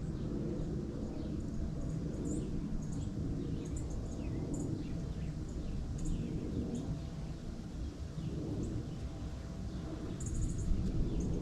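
Birds chirping outdoors in autumn: short, high chirps and a few quick falling notes come now and then, with a brief flurry of chirps near the end, over a steady low rushing background noise.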